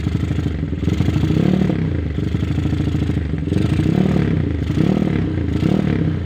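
Honda Tiger motorcycle's single-cylinder engine, stroked up with a 74 mm piston and standard valves, idling with an even exhaust beat. The revs are blipped briefly about four times.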